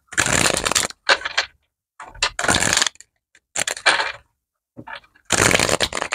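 Tarot cards being shuffled by hand, in about five short rasping bursts with brief pauses between them.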